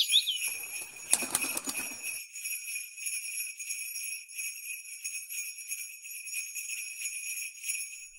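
Jingle bells shaking steadily, with a brief rushing noise from about half a second to two seconds in.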